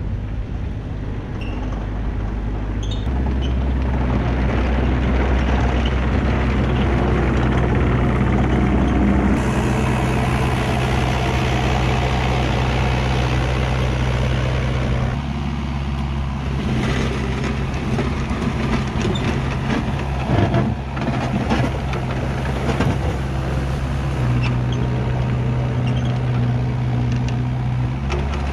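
Kubota KX121-3 mini excavator's diesel engine running steadily as the machine tracks along. Its note shifts a few times, and scattered clicks and knocks come through near the middle.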